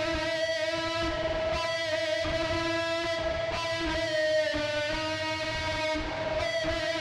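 Instrumental music: strummed guitar under long, slowly changing held notes.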